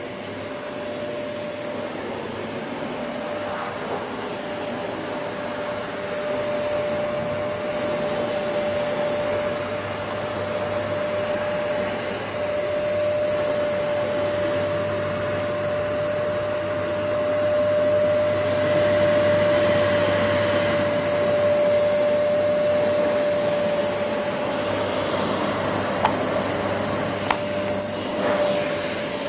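OneConcept Clean Master 700-watt bagless cyclone vacuum cleaner running steadily, a constant whine over its rushing airflow, growing somewhat louder as it goes. Two short clicks come near the end.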